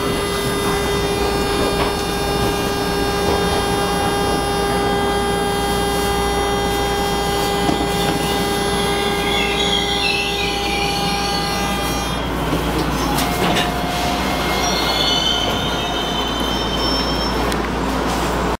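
Interior running sound of a Hawker Siddeley H5 subway car: a steady rumble with a held whine that cuts out about two-thirds of the way through, and the wheels squealing on the rails twice, once around the middle and again near the end.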